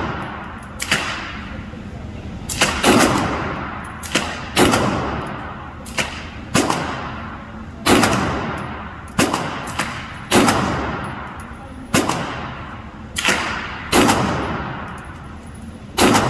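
Pistol shots fired one at a time in a slow, uneven string, about fifteen in all, some louder than others, each sharp crack trailing off in a long echoing decay.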